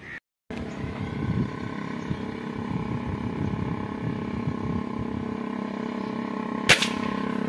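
A single sharp air rifle shot near the end, over a steady background hum.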